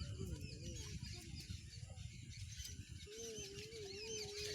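Outdoor ambience of many small birds chirping over a steady low rumble. About three seconds in, a drawn-out wavering call holds for over a second.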